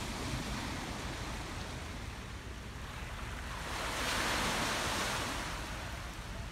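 Small waves washing onto a pebble shore, one swelling and hissing up the beach about four seconds in, with wind rumbling on the microphone.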